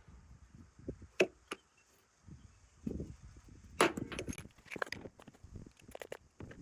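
Glue-pull dent lifter being squeezed on a hail dent in a car body panel: a sharp snap about a second in, a louder snap near the middle as the pull lets go, then a run of lighter clicks and taps.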